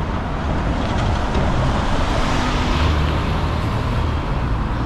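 Double-decker bus driving past, its engine and tyre noise swelling and then fading about two to three seconds in, over steady street traffic.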